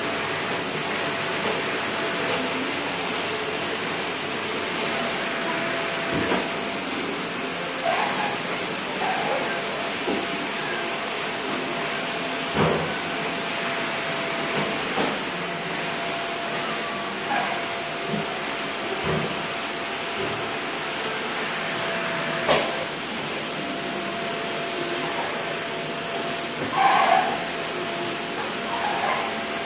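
A steady rushing noise with a faint steady hum in it, broken by a few short knocks and clicks.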